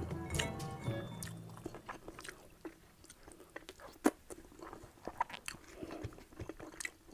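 Close-miked eating sounds: chewing and wet mouth smacks as rice and pork in coconut sauce are eaten by hand, with one sharp smack about four seconds in. Background music plays for about the first second, then stops.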